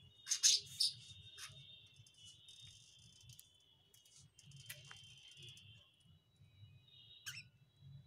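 A flock of caged budgerigars warbling and chattering steadily, with a few sharp chirps on top; the loudest pair comes about half a second in.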